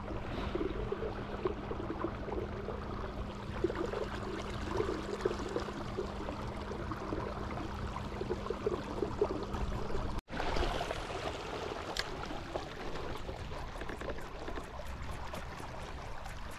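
Water gurgling and lapping against the hull of a fishing kayak under way. A steady low hum runs underneath for the first ten seconds and is gone after a brief dropout.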